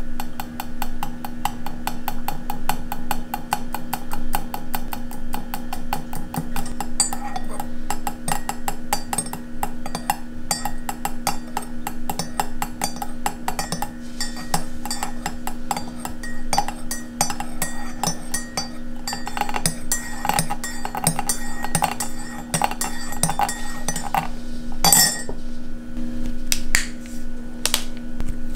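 A metal teaspoon stirring a drink in a ceramic cup, clinking rapidly and unevenly against the inside of the cup, with one louder ringing clink near the end. Then a couple of sharp finger snaps.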